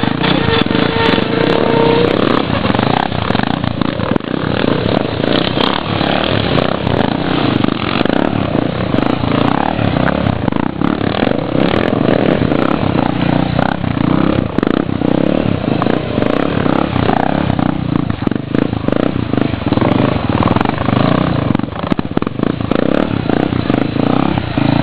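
Motorcycle engine running loudly and continuously, its sound swelling and dipping.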